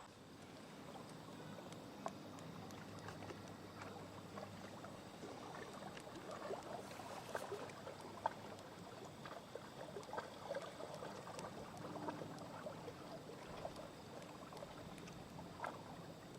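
Faint lakeside ambience: water lapping at the shore, with small scattered splashes and ticks.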